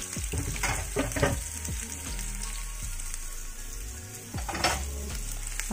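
Sliced onions sizzling in hot oil in a nonstick frying pan, a steady hiss with a few short knocks.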